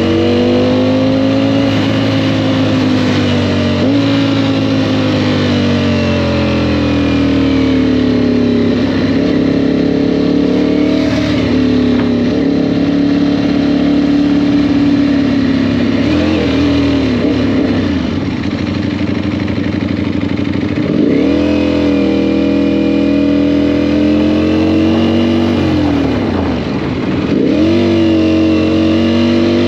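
Motorcycle engine running under way, its pitch rising and falling with the throttle; in the second half the note drops sharply and climbs back a few times, as with shifts or rolling off and back on the throttle.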